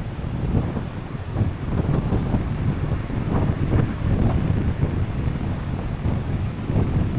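Wind buffeting the microphone: a loud, uneven low rumble that flares up in irregular gusts.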